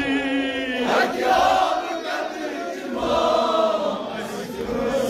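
Male voices chanting a Kashmiri noha, a Shia mourning lament, in a slow unison chant with long held, wavering notes, a lead reciter joined by a group of men.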